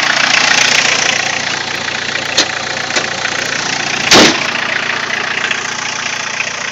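VW Rabbit pickup's turbo diesel engine idling steadily, a little noisy. There is a short loud thump a little past the middle.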